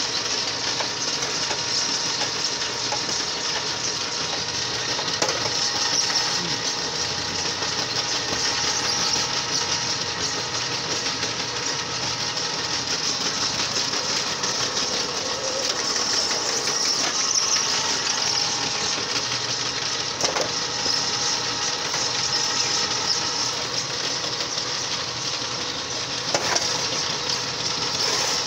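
Motor-driven clay mixer running steadily while it works wet clay, with a few short knocks.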